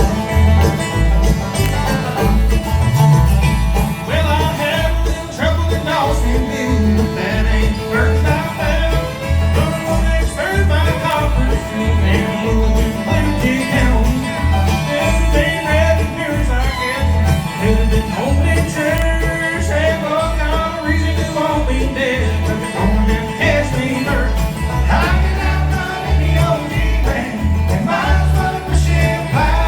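Bluegrass band playing, with banjo, guitar and fiddle lines over a steady bass beat.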